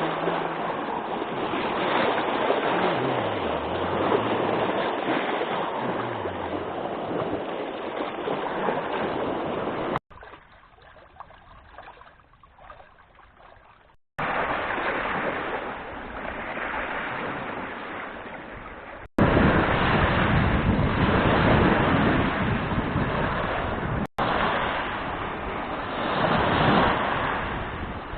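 Strong wind blowing over the microphone with lake water splashing and lapping, in a few short clips joined by abrupt cuts; one clip in the middle is much quieter, and the wind is loudest and gustiest in the last part.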